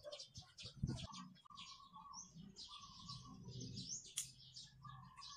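Small birds chirping, many quick high chirps in rapid succession throughout, with a single dull thump about a second in.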